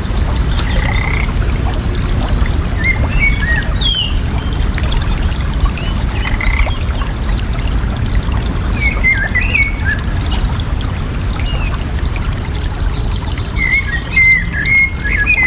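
Running water pouring and gurgling steadily, with birds calling now and then in short chirps and a longer run of twittering near the end.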